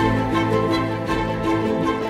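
Background music with strings playing long held notes.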